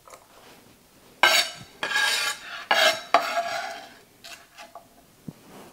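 Kitchen knife scraping chopped onion across a wooden cutting board: three or four rough scraping strokes, followed by a few light taps near the end.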